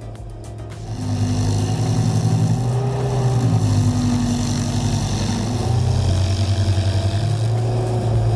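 A large engine running steadily, louder from about a second in, its pitch shifting slightly a few times as the load changes.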